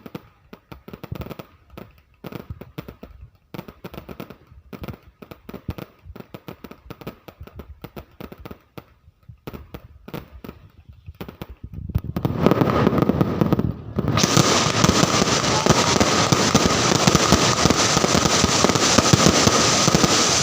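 Fireworks going off: scattered separate bangs for the first twelve seconds or so, then a dense, rapid barrage of pops that briefly drops out near fourteen seconds and carries on.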